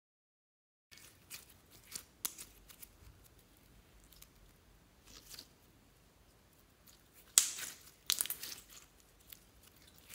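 Clear slime studded with sequins and glitter being squeezed, stretched and pulled apart by hand, giving soft crackles and pops as it moves. After a silent first second the crackles are faint and scattered, with a louder bout of crackling and tearing about seven to eight and a half seconds in.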